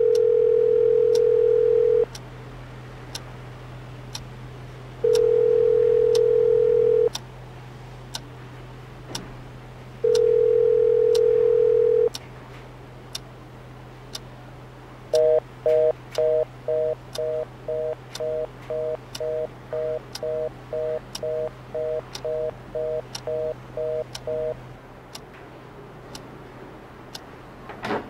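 Telephone ringback tone heard through the handset: three long rings about five seconds apart, with the call not picked up. Then a fast two-note busy tone beeps about twice a second for several seconds and stops. A clock ticks about once a second underneath.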